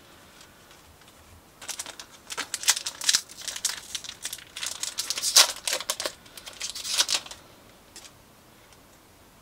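Foil wrapper of a Japanese Pokémon Battle Region booster pack being torn open, crinkling and crackling in a run of sharp rustles from about a second and a half in until about seven seconds in.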